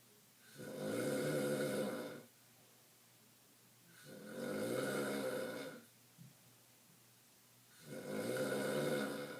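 A person snoring in a slow, regular rhythm: three long snores, each lasting about one and a half to two seconds, coming roughly every four seconds.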